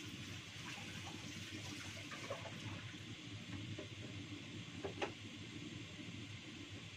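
Water running from a kitchen tap into a sink while something is washed by hand, with light clatter and a sharper knock about five seconds in.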